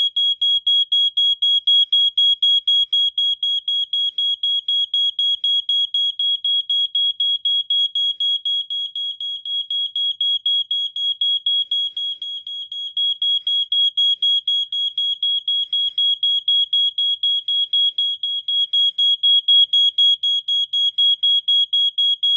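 A 1987 Wake and Warn 2 smoke detector in alarm: one high-pitched tone pulsing rapidly, about four times a second, staying on without shutting off. It dips in loudness for a few seconds midway, then comes back.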